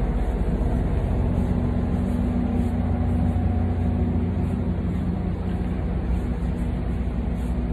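Steady low rumble of street traffic, with the constant hum of an engine running nearby.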